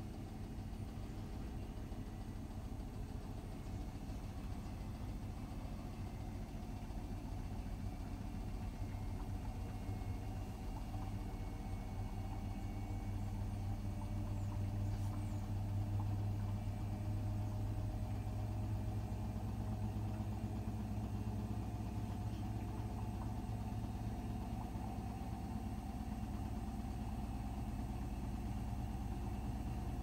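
Hotpoint WMFUG 942 washing machine running with a steady low hum, which grows louder about twelve seconds in and then holds.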